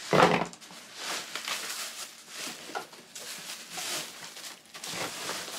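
Plastic wrapping and foam packing rustling and crinkling as a boxed mini mug heat press is handled and pulled out of its cardboard box, with a loud rustle right at the start.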